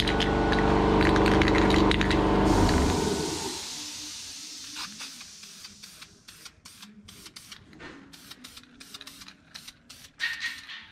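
A motor runs loudly and steadily, then winds down and stops about three seconds in. After that, a rattle-can of self-etch primer is sprayed in many short hissing bursts onto bare welded sheet metal.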